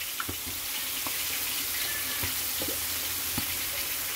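Sliced onions and carrots frying in a pan, making a steady sizzling hiss with scattered small pops and crackles.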